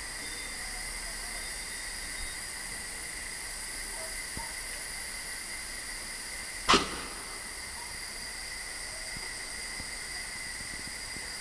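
Freight train of tank wagons at very slow speed or standing: a steady hiss with faint high whines, broken once, about two-thirds of the way through, by a single sharp clank.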